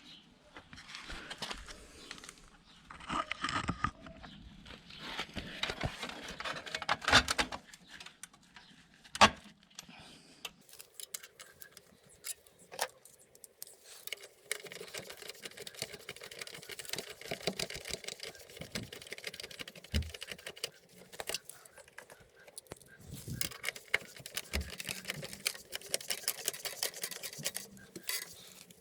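Metal clinks and rattles of hand tools and parts being handled, with scattered knocks and one sharp loud knock about nine seconds in.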